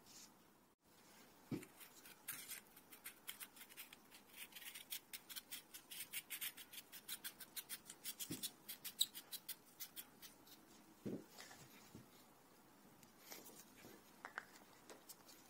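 Faint, rapid clicking of a Redwin rifle scope's adjustment dial being turned by hand, in a long run from about two seconds in to about ten seconds, with a few more clicks near the end. A few soft knocks from handling the scope.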